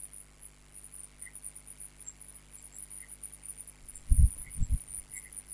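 Quiet recording room tone: faint hiss with a steady high-pitched whine, and two short, soft low sounds about four seconds in.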